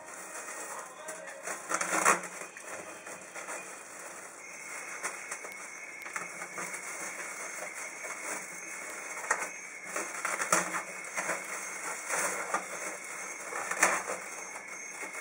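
Plastic cling film crinkling and crackling as it is pulled off a roll and wrapped around a head of hair, with irregular rustles and louder handling crackles about two seconds in and again toward the end.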